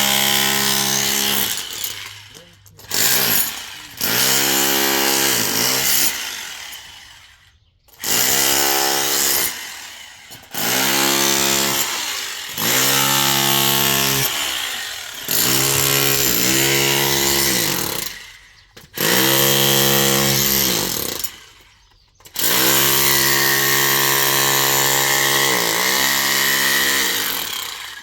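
A small engine revved repeatedly in bursts of two to four seconds, its pitch rising and falling with each burst, dropping back briefly about nine times.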